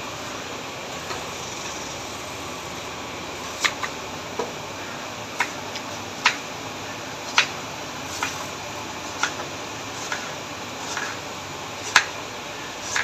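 Kitchen knife slicing a red onion on a plastic cutting board: from about three and a half seconds in, a sharp knock each time the blade reaches the board, roughly one a second, over a steady background hiss.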